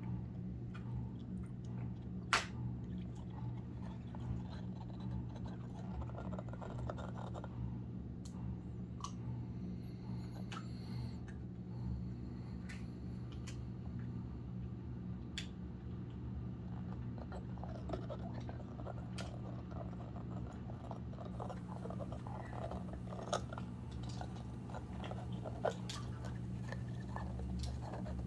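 Small dog gnawing a rubber chew toy: irregular clicks and crunches of teeth working the rubber, with one sharper click about two seconds in, over a steady low hum.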